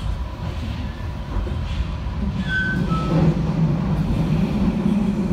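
Passenger train running at speed, with the steady low rumble of the coach's wheels on the track. A few short high tones come about halfway through.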